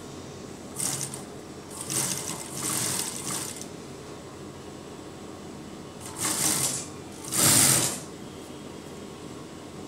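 Industrial lockstitch sewing machine stitching in five short runs, each a second or less, with a steady hum between them.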